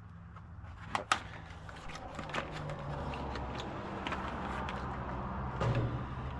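A steady low mechanical hum that grows louder about two seconds in, with a few sharp clicks, two of them close together about a second in.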